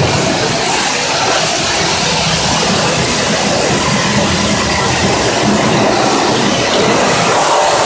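Pressure washer jetting water against the inside of a stainless-steel kitchen exhaust hood, a loud, steady hiss of spray.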